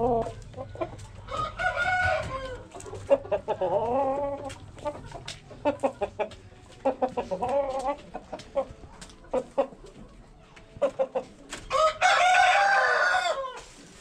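Aseel rooster calling in short, repeated clucks, then a longer, louder crow about twelve seconds in, with small sharp clicks between the calls.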